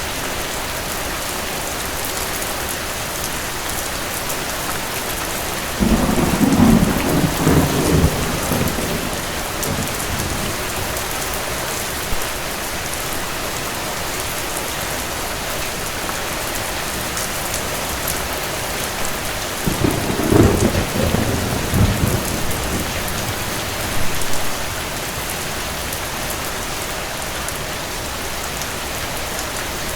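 Steady rain with two rolls of thunder: one starts suddenly about six seconds in and rumbles for a few seconds, and a second, longer one comes near the two-thirds mark.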